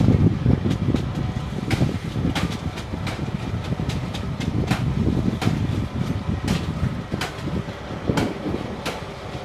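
Fishing boat's engine rumbling steadily, with scattered sharp clicks and knocks as small fish and plastic baskets are handled on the deck.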